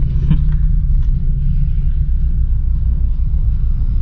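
Steady low rumble of a 2021 Toyota Hilux pickup driving, heard inside the cab: engine and road noise.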